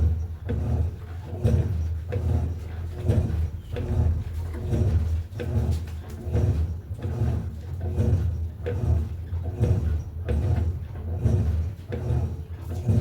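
Electrolux LTE08 top-loading washing machine agitating a load in its wash cycle: the motor hums in repeated strokes about once a second, with the swish of water and clothes.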